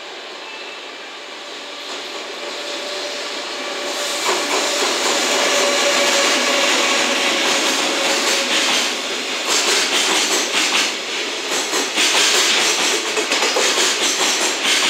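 EF210 electric locomotive hauling a container freight train past, growing louder as it approaches. A steady whining tone runs while the locomotive goes by. Then the container wagons' wheels clatter over the rail joints in a quick rhythm.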